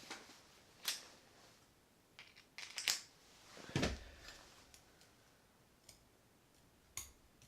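Small flathead screwdriver working a screw inside a Penn 260 Slammer spinning reel, metal on metal: a few separate sharp clicks and taps, with a duller knock about four seconds in.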